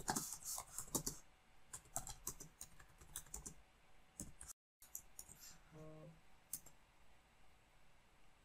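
Typing on a computer keyboard: faint, irregular key clicks in short runs. The sound cuts out completely for a moment about halfway through.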